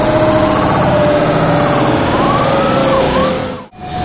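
Airbus A320neo jet engines passing low overhead on landing approach: a loud roar with a whining tone that slowly falls in pitch. Near the end the sound cuts out for a moment, and another airliner's engine roar on approach, with a steadier whine, takes over.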